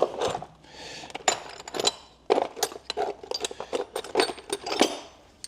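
A 1/4-inch-drive socket wrench with a wobble extension ratcheting on a supercharger bolt: a run of sharp, irregular clicks, a few a second, from about two seconds in until near the end. A short hiss comes about a second in.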